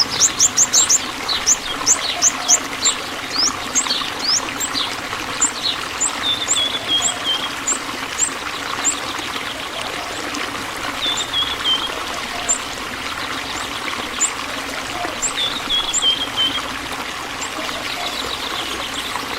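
Small birds chirping with short, high-pitched sweeping calls, quick and crowded at first and sparser later, and three short runs of notes that step down in pitch. Underneath runs a steady trickling hiss like running water.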